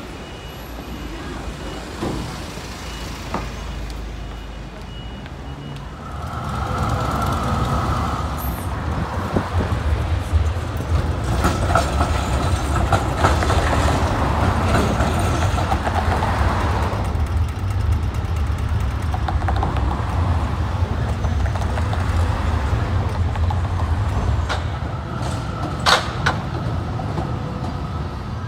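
City street traffic with trams passing: a steady low vehicle rumble that grows louder about six seconds in and holds, with one sharp clack near the end.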